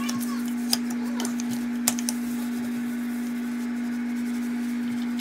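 A steady low hum at one unchanging pitch, with a few faint clicks or taps near the start and around two seconds in.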